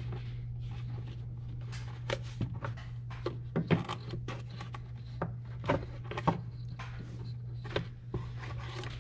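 Plastic airbox lid of a 2018 Chevrolet Silverado being worked loose and lifted off the filter box by hand. Scattered plastic clicks and knocks, some sharper than others, sound over a steady low hum.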